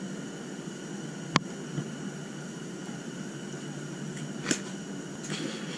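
Steady hiss of background noise, broken by a sharp click about a second and a half in and a softer click near the end.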